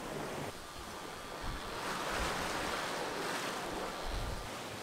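Sea water rushing and breaking along the side of a sailboat under way, swelling and easing, with a few low gusts of wind buffeting the microphone.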